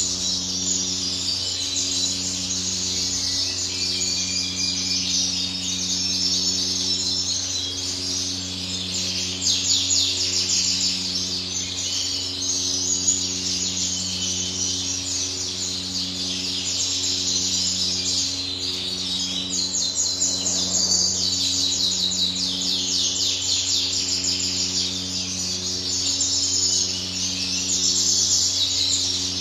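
Many caged canaries chirping and trilling together in quick, overlapping twitters, over a steady low electrical hum that pulses faintly.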